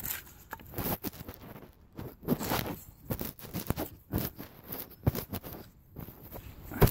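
Ceramic insulator being twisted and unscrewed by hand from its wooden mount: irregular gritty scraping and crunching clicks, with a louder knock near the end.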